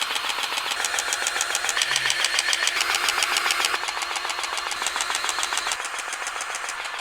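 A powered grease gun running, its motor and pump making a steady fast pulsing as it pumps grease. The sound dips slightly in level a little before the end.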